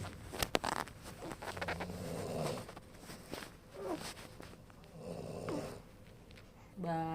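A man snoring in slow, rhythmic breaths, a noisy snore about every three seconds, with a longer, buzzier snore near the end.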